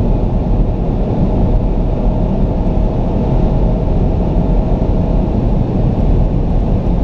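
Interior sound of a Porsche Panamera Turbo's twin-turbo V8 pulling at about 6,000 rpm in sixth gear near 300 km/h, under a heavy, steady rush of wind and road noise. A faint steady whine drops out about five seconds in, as the throttle is lifted and boost falls to zero.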